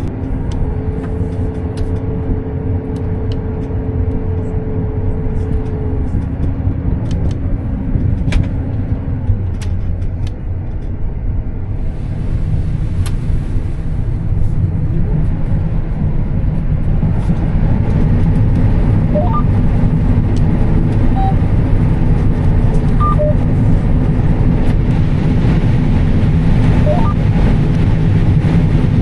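Steady drone of a John Deere S780 combine running while harvesting corn, heard from inside the cab. A steady whine stops about six seconds in. A few faint short chirps come in the second half, and the running grows a little louder after about seventeen seconds.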